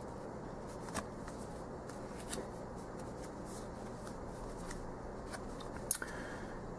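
Tarot cards handled by hand, one card set down and the next picked up: a few light clicks and slides of card stock, the sharpest just before the end, over a steady low hum.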